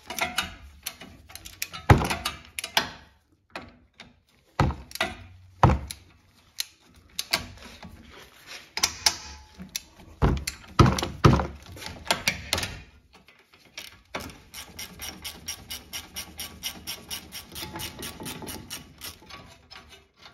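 Ratchet wrench with a 17 mm socket working the front caliper bracket bolts loose: several sharp knocks through the first twelve seconds. About two-thirds of the way in, a steady run of rapid ratchet clicks starts as a bolt is spun out.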